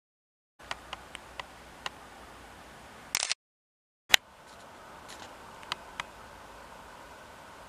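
Camera handling noise between clips: a low steady hiss with scattered small ticks, then about three seconds in a short rattling burst as the camera's record button is pressed, a second of dead silence at the cut, and a sharp click as the next clip starts.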